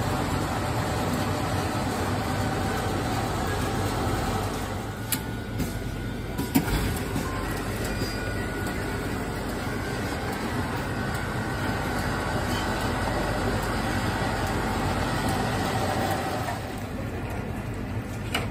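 Steady mechanical hum and whir of a Slurpee frozen-drink machine and the store's refrigeration, with a few light knocks about five to seven seconds in.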